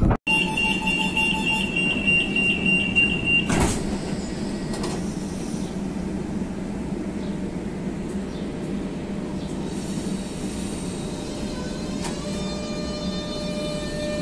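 Renfe Class 447 electric multiple unit moving along the platform close by, with a steady running hum and a high steady tone for the first few seconds. There is a single clunk about three and a half seconds in. From about ten seconds a whine rises in pitch and then holds steady, typical of the traction motors as the train gathers speed.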